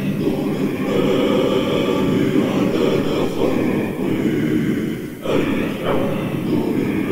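A steady, droning chant-like soundtrack of held voices, with a short dip about five seconds in.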